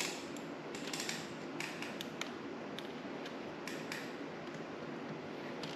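Quiet handling noise with a few scattered small plastic clicks as a zip tie is fed around a motorcycle frame and a plastic frame protector.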